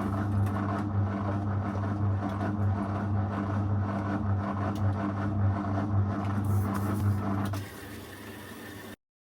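Zanussi FL984CN washing machine running with a steady low hum that stops about seven and a half seconds in, leaving a faint hiss; a second later all sound cuts off.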